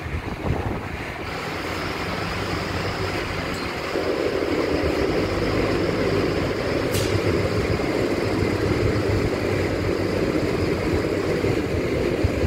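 Steady mechanical rumble of a running engine, with a faint high whine, growing louder about four seconds in.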